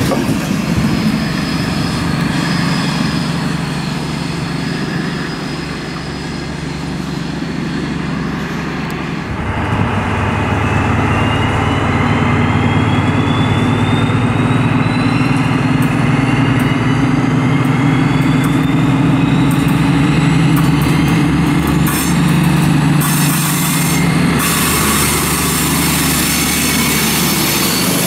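For about the first nine seconds, passenger coaches roll past with a steady low drone. Then two DB class 218 diesel-hydraulic locomotives working together take over. Their engines give a louder, deep drone, joined by a whine that climbs steadily in pitch as they draw nearer and pass close by.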